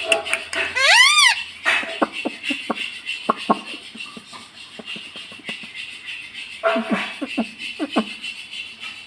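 Pet ring-necked parrot calling and chattering: a loud warbling call about a second in, then a run of short chirps and clicks, with another burst of quick chirps near the end.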